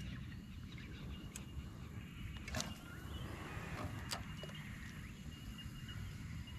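Faint outdoor ambience from a kayak on a calm lake: a low steady rumble with a thin steady high tone, broken by three sharp clicks.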